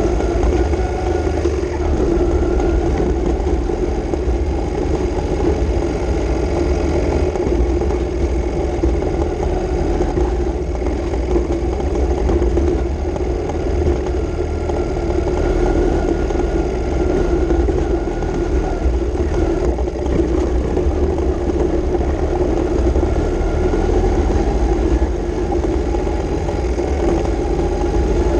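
Ural M67 motorcycle's flat-twin engine running steadily under way, its pitch drifting slightly with small throttle changes, over a low wind rumble.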